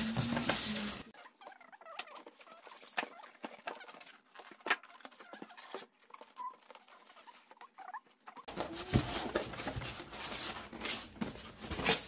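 Expanded polystyrene packing foam squeaking and rubbing as it is pulled off a sewing machine, in short scattered squeaks and clicks that grow busier and louder near the end.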